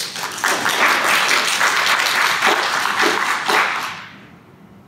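Audience applauding. It starts suddenly, holds for about three and a half seconds, then dies away near the end.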